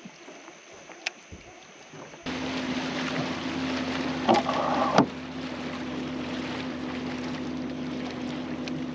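Boat motor running steadily with a low hum and wind on the microphone. It comes in abruptly about two seconds in, after a few faint clicks, with a brief louder rattle and a sharp knock a couple of seconds later.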